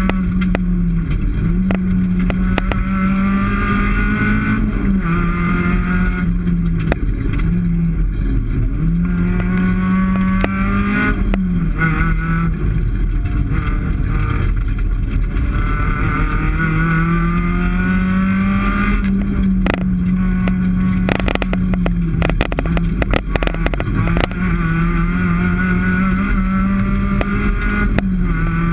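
Rally car's engine heard from inside the cockpit at full stage pace, its pitch climbing and dropping again and again through gear changes and braking. A run of sharp knocks and clacks comes about two-thirds of the way through.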